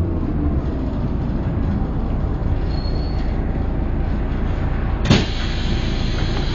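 Bus interior with the MAN diesel engine running low and steady as the bus draws up at a stop. About five seconds in, a sudden blast of air and a steady hiss after it: the pneumatic doors opening.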